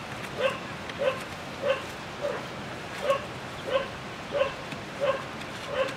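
A dog barking steadily: short, even barks about every two-thirds of a second, nine in all.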